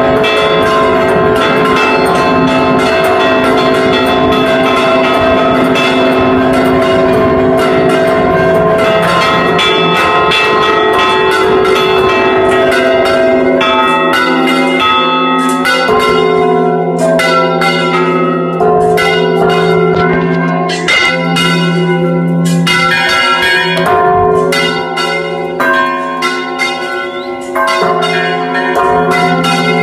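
Bronze church bells rung close up in the tower in a rapid festive repique, their clappers pulled by hand-held ropes, many strikes overlapping into a continuous loud peal. From about halfway a deeper bell comes to the fore with regular strokes among the higher ones.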